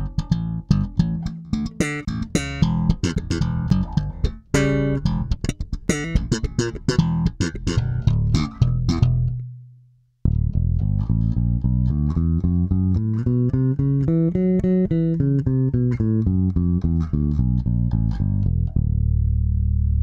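Five-string electric bass, recorded direct, playing a looped phrase of many short, sharply attacked notes through a Pete Cornish OC-1 compressor pedal. After a short break about halfway in, it plays the phrase again through a Zoom MS-60B's 160COMP compressor: sustained notes sliding up and back down, ending on a held low note.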